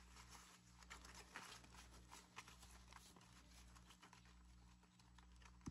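Faint rustling and flicking of paper banknotes being counted by hand, a stream of small soft ticks over a low steady hum.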